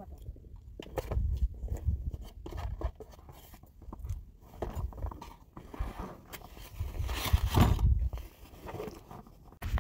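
Wind buffeting the microphone, with a spoon scraping and clicking against a plate. There is a louder stretch of noise about seven seconds in.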